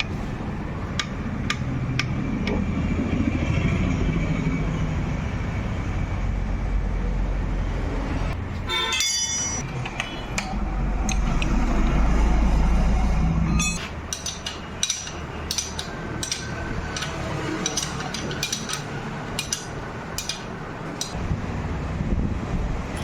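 A low, steady motor rumble that cuts out about 14 seconds in, with a short high toot a little before that, then scattered sharp metallic clicks and taps.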